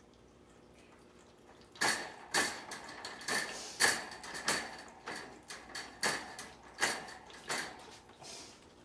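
Metal wire pet cage rattling in a run of clattering knocks, about two a second, each with a brief metallic ring; they start about two seconds in.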